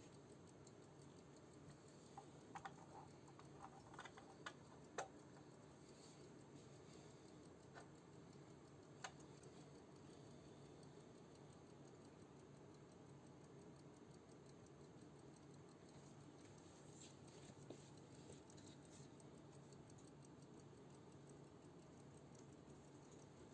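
Faint ticking of a 1984 Soviet mechanical table clock, heard as scattered small clicks against near silence, with a cluster of sharper clicks a few seconds in.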